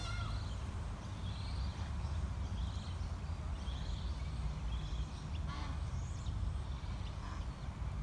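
Birds calling at a pond: short high chirps repeating about once a second, with a few harsher calls, one near the start and another a little over five seconds in. A steady low rumble sits underneath.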